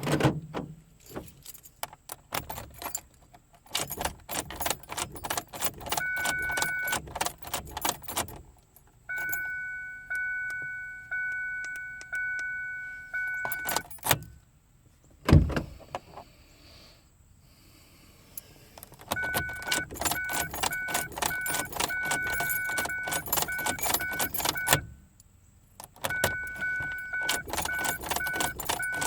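Keys jangling and clicking on a keyring as a Ford Focus ignition key is turned on and off over and over, the cycling sequence for programming a replacement key remote. The car's warning chime sounds, first held steady and later as rapid repeated beeps, and there is one heavy thump about fifteen seconds in.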